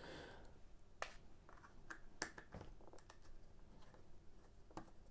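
Near silence with a handful of faint, scattered clicks and taps from hands handling a pair of Sony MDR-V6 headphones' plastic ear cup and headband.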